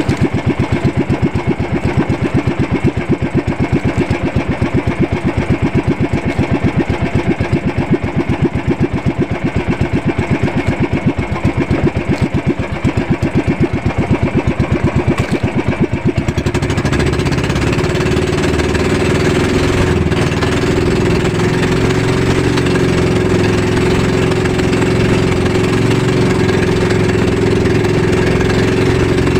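Outrigger fishing boat's engine chugging slowly in even pulses. About halfway through, it is throttled up and runs faster and smoother with a steady drone as the boat gets underway.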